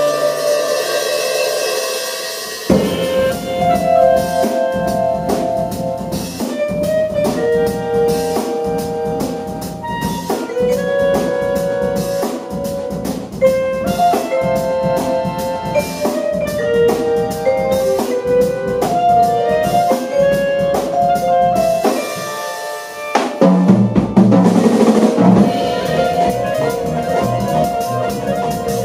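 Small jazz ensemble playing live: clarinet, accordion, double bass, mallet percussion and drum kit. A few held notes open, then about three seconds in the band breaks into a busy rhythmic passage of short notes over snare and rimshot strokes. Near the end the sound thins briefly before the band comes back in with a loud hit.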